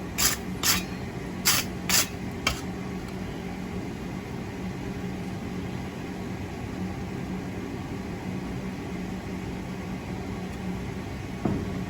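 Wire brush scrubbing a steel fireplace poker after quenching, five quick strokes about half a second apart, then a steady low hum.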